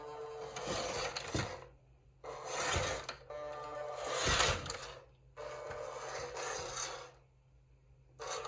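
Electric motor and gearbox of a WPL C24 RC crawler whirring in repeated bursts of one to two seconds as the throttle is applied and released, with gear noise under a steady whine.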